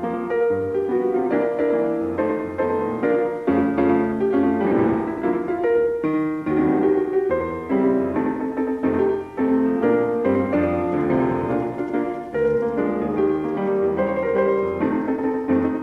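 Background piano music, a continuous flowing melody with chords.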